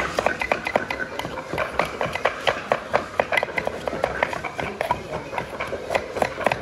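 Kitchen knife chopping yellow carrots into strips on a wooden cutting board: quick, irregular knocks of the blade on the wood, several a second.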